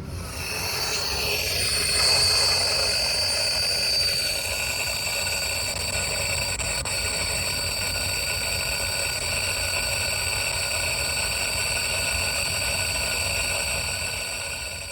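Normal water flow through a buried pipe, picked up and amplified by an electronic leak detector's ground microphone: a steady hiss with several steady high tones over it.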